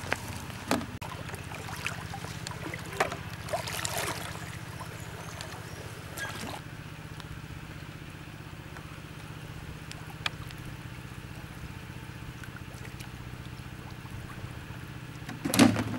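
Pond water splashing and trickling as a wader handles plastic-bottle fish traps and a plastic bucket, with several short splashes early on and one loud splash near the end. A steady low hum runs underneath.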